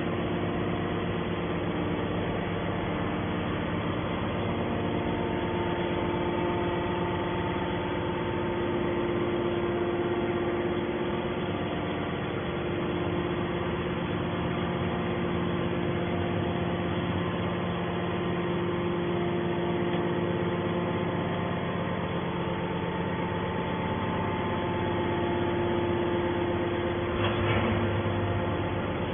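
Steady hum of running machinery with several constant tones, holding an even level, and a brief louder knock near the end.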